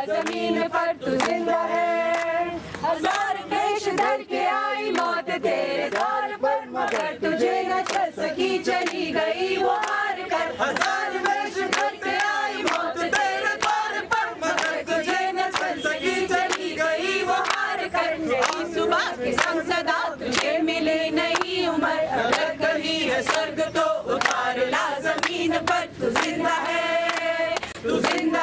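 A group of men and women singing a Hindi protest song together, unaccompanied, with hand claps keeping time.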